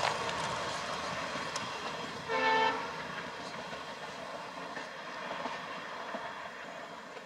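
Train hauled by two ALCo diesel locomotives rolling past and fading away, with one short horn blast about two and a half seconds in.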